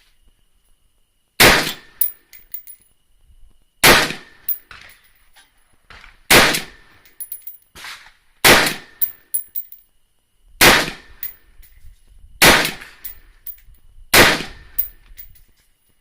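AR-15 rifle in .223 fired seven times in slow, steady semi-automatic fire, about one shot every two seconds, each shot followed by a few quick metallic clinks.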